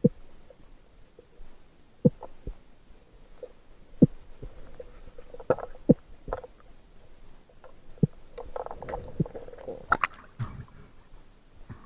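Muffled underwater sound: scattered sharp knocks and clicks, about one every second or two, with a faint low hum in between.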